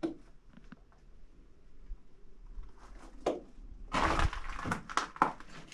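Debris crunching and knocking: faint scattered clicks, then a cluster of sharp cracks and knocks about four seconds in.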